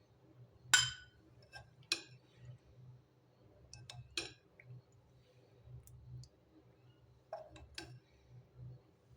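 Dishware and a utensil clinking: four sharp clinks, each ringing briefly, the loudest about a second in, with a few lighter taps between them.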